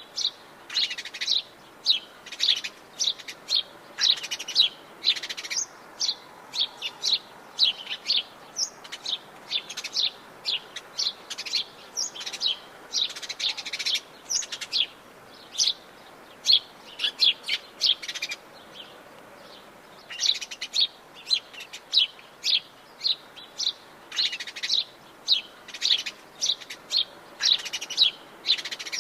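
Several birds chirping and calling over one another in rapid, dense bursts of short high notes, with a short lull past the middle.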